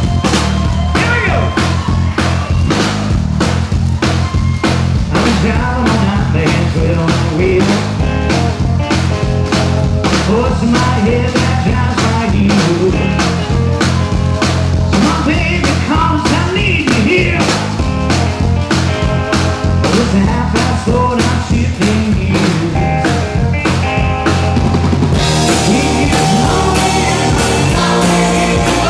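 Live rock band playing a song: a steady drum beat over a bass line and bending guitar notes, with the cymbals growing brighter about 25 seconds in.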